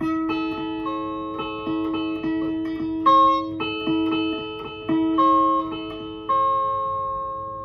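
SG-style solid-body electric guitar with single notes of small chord shapes picked one after another on the G, B and high E strings, each left ringing into the next. A few notes come out stronger, and the last shape rings out and fades near the end.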